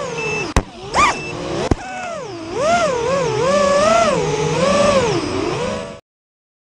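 FPV drone's electric motors and propellers whining, the pitch swooping up and down as the throttle changes, with a quick rising punch about a second in. Two sharp clicks come about a second apart near the start, and the sound cuts off suddenly about a second before the end.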